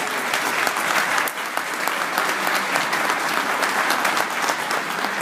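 Audience applauding steadily, with one person's claps close by standing out from the rest.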